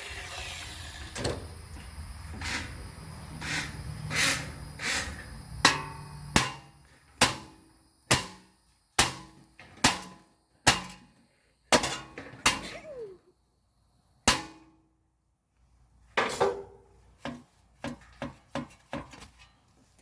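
Hammer blows on a metal fan casing and motor, beating the motor free for scrap: about a dozen sharp ringing strikes, spaced about a second apart, then a pause and a run of lighter metal clatter near the end.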